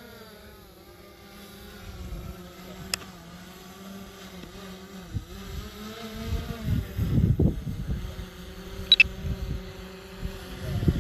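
Small camera drone's propellers humming, their pitch wavering up and down as it climbs and turns, with gusts of wind buffeting the microphone about six seconds in and again near the end.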